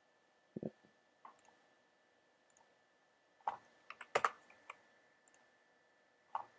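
Faint, irregular clicks of a computer mouse and keyboard while lines are drawn in a drawing program: about a dozen short, sharp clicks, bunched most closely a little past the middle.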